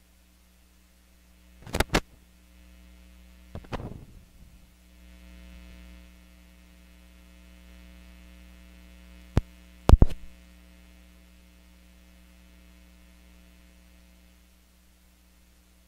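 Electrical mains hum from a failed microphone feed with the voice cut out, broken by loud sharp clicks: a pair about two seconds in, a crackle near four seconds and another pair near ten seconds. The hum fades out near the end.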